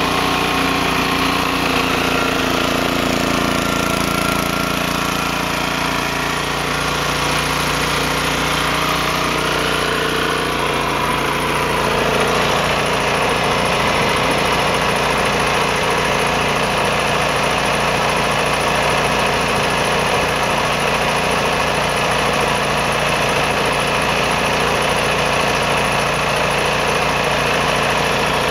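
Eagle gas-powered air compressor running: its Honda 5.5 hp single-cylinder engine runs steadily, driving the twin-cylinder pump. The note shifts slightly about twelve seconds in and stays even after that.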